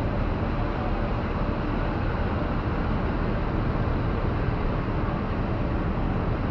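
Steady outdoor noise: a continuous low rumble with hiss and no distinct events.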